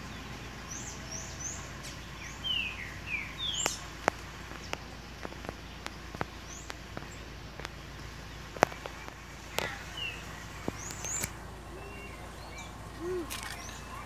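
Green-winged saltator (trinca-ferro) singing from a treetop: short whistled notes and slurred chirps come in loose runs, with a few sharp clicks between them.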